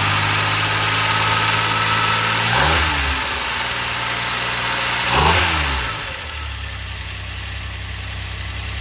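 DeLorean PRV V6 engine, running on a newly fitted carburettor, idling. The throttle is blipped by hand twice in quick rises and falls of revs, after which the engine settles into a quieter, steady fast idle.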